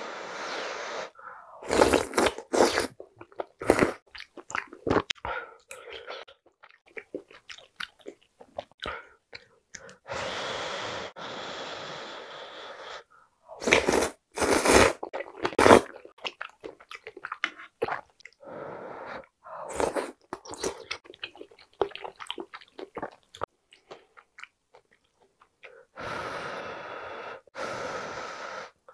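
Close-miked eating: long slurps of soup broth and glass noodles from a ladle, a few louder sucking slurps, and wet chewing of beef and noodles with short mouth clicks in between.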